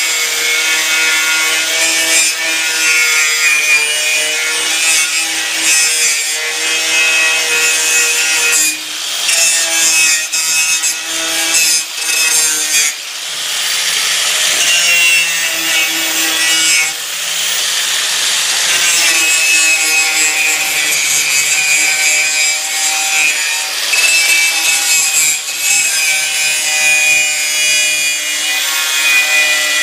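DeWalt 4.5-inch angle grinder with a small wire wheel running against the metal riffle tray of a dry washer, scrubbing off the residue left by the old riffle cloth. A steady motor whine under harsh wire-on-metal scratching, dipping briefly a few times midway.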